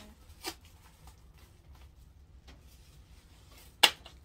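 Packaging being handled and rustled as a kite handle is unwrapped, with a short crinkle about half a second in and a louder, sharp crinkle near the end.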